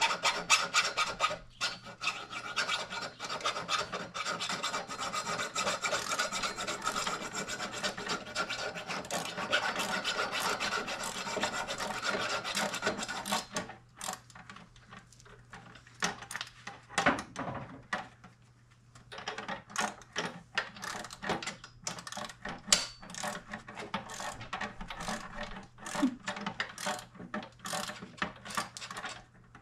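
Hand tools at work on a mini bike being assembled: fast rasping, ratchet-like clicking for about thirteen seconds. Then a short lull, one louder knock, and scattered clicks and knocks.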